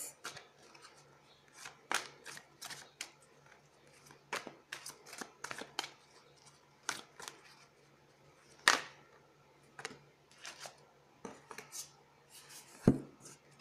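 Deck of tarot cards being shuffled and drawn by hand: a scattered run of short flicks and snaps, with a sharper snap about nine seconds in and a soft thump near the end.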